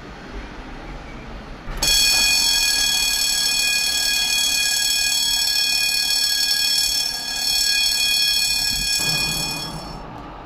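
Tatra T6A2 tram passing, giving off a loud, steady, high-pitched multi-tone squeal that starts suddenly about two seconds in and dies away near the end.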